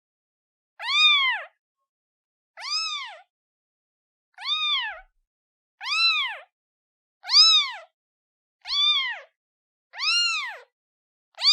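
Newborn kitten meowing for its mother: short, high-pitched meows repeated about every one and a half seconds, each rising and then falling in pitch.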